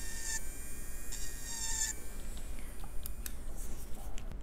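Aizumi electric nail drill running with a fine cuticle bit, its high whine growing louder in three short passes as the bit works along the cuticle. The whine fades about halfway through, and a few light clicks follow.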